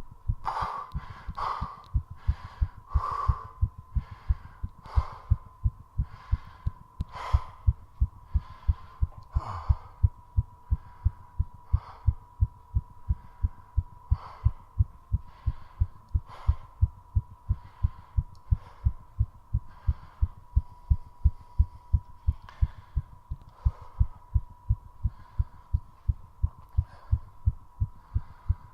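A human heart beating fast, a steady run of low thumps at about two to three beats a second, raised by squat exercise. Heavy breaths sound over it, coming every second or two at first and then further apart and fainter, with a faint steady high hum underneath.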